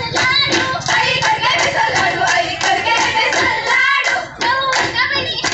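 Women singing a Goan fugdi folk song together, with steady rhythmic hand claps; the singing and clapping drop out briefly about four seconds in.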